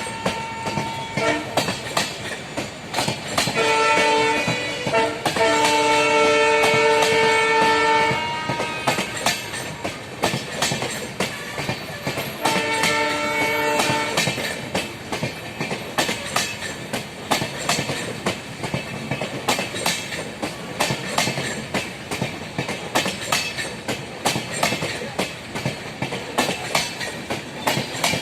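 EMD WDP4B diesel locomotive sounding its air horn three times: a short blast and a longer one close together a few seconds in, then another short blast about halfway. Underneath, its wheels clatter in a rapid steady clicking over the rail joints as the train runs.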